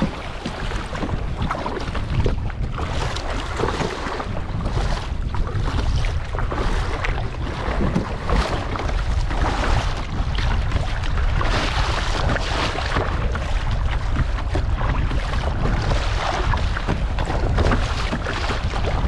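Wind buffeting the microphone in a steady low rumble, with choppy sea washing and splashing around a kayak being paddled.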